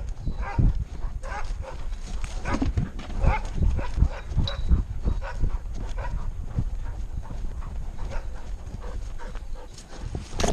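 A puppy running, heard close up from a camera on its harness: its breathing and dog noises come over a run of uneven knocks and thuds as the camera mount jolts with each stride.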